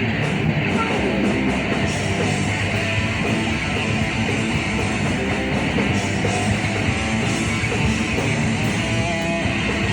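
Rock band playing live: loud, guitar-driven heavy rock that runs without a break.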